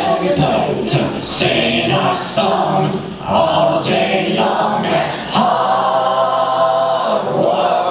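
Several voices singing together in a song number, with little or no accompaniment, ending on a long held note about two seconds long shortly before the end.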